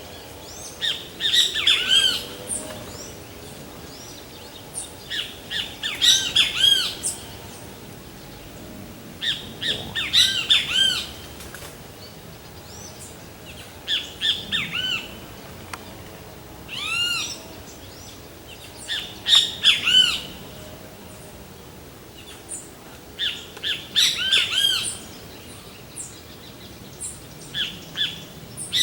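Great kiskadee (bem-te-vi) calling: loud bouts of arched, harsh, ringing notes, repeated every few seconds, eight or so bouts in all.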